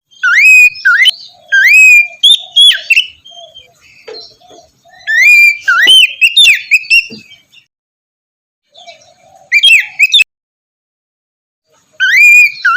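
Oriental magpie-robin singing loud whistled phrases of sliding, rising and falling notes, in about four bursts with silent gaps between.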